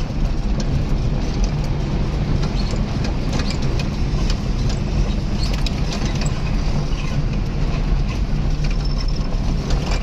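Steady drone of a moving vehicle's engine and road noise, heard from inside the cab.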